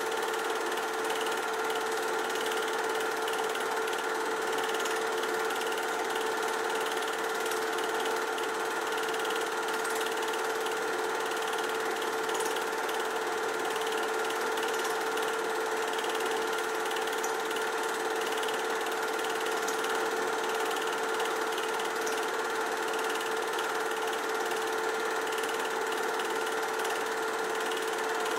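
Film projector running: a steady, even mechanical clatter with a constant hum underneath, unchanging throughout.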